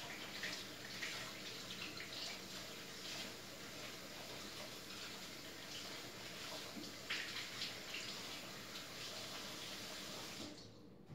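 Tap water running into a sink while hands are washed, heard from another room. It cuts off suddenly about ten and a half seconds in as the tap is turned off.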